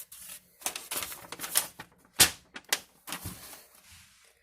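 Handling sounds: a few irregular sharp clicks and taps with light rustling as metal lock picks and a paper receipt are handled, the loudest click about halfway through.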